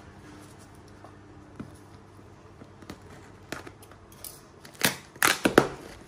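Scissors cutting the packing tape on a small cardboard box, with a few light snips, then the flaps pulled open and crumpled paper packing crackling inside. The crackles come close together and loudest near the end.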